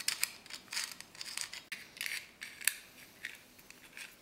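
Irregular small metallic clicks and scrapes as a threaded rod is worked through the snug-fitting holes of a sheet-metal stove damper plate.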